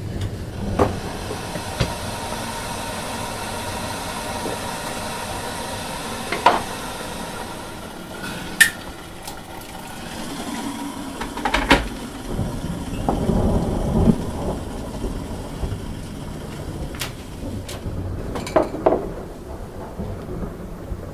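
Thunderstorm: steady rain hiss, with a low thunder rumble about halfway through. A few sharp clicks and knocks stand out over it.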